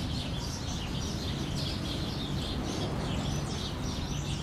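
Many small birds chirping in a dense, continuous chorus of short calls, over a steady low rumble of background noise.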